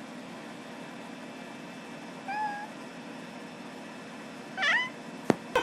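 A cat giving two short meows, a brief one about two seconds in and a louder, bending one near the end, over a steady background hiss. A single sharp click just after the second meow.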